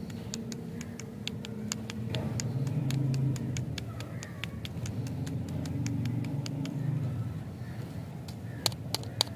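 Crinkly plastic lollipop wrappers crackling with sharp, irregular clicks as the lollipops are handled, with three louder clicks near the end, over a low steady background rumble.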